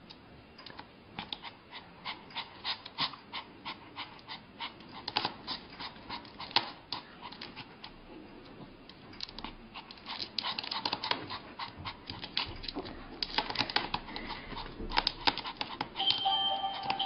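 A puppy's claws tapping and scraping on a glass tabletop in quick, irregular clicks as it paws at the glass. Music starts near the end.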